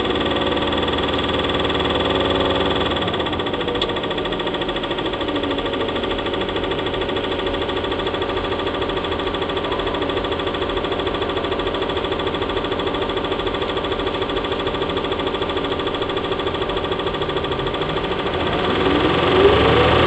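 Cummins ISL diesel engine of an Orion VII NG transit bus with an Allison B400R automatic transmission, running with a steady drone. Near the end the engine note climbs and grows louder as the bus picks up.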